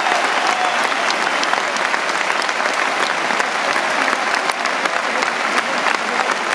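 Large concert audience applauding steadily, many hands clapping at once.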